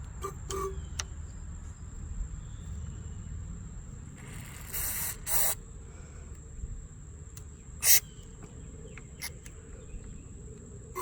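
Aerosol carburetor cleaner sprayed into a small-engine carburetor's inlet port in short hissing bursts: two about four to five and a half seconds in, and a brief louder one near eight seconds. Small handling clicks, and a steady high thin tone underneath.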